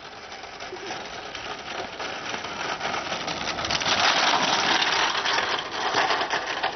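A homemade kart's hard wheels rolling and rattling down a rough asphalt road, a steady rushing noise that swells as the kart passes close by about four seconds in.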